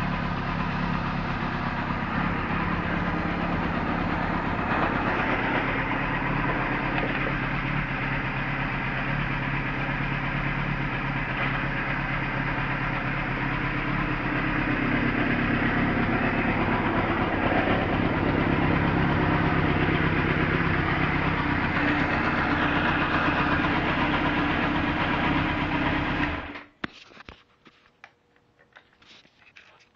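A 1978 Kawasaki KZ1000's air-cooled inline-four engine running steadily, freshly rebuilt, smooth and without timing-chain rattle. It stops abruptly near the end.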